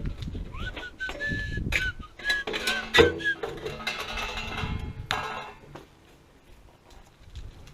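A person whistling a short tune of brief notes with little slides, over clanks and knocks of metal parts and tools being handled, the loudest knock about three seconds in. Things go quieter near the end.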